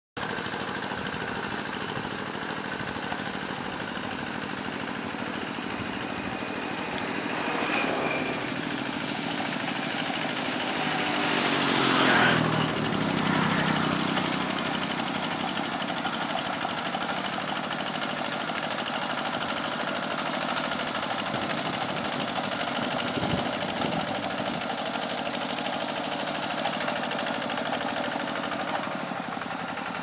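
A small engine runs steadily in the background, most likely the single-cylinder engine of a two-wheel hand tractor harrowing a flooded rice paddy. About twelve seconds in, a vehicle passes close by, and its pitch falls as it goes past.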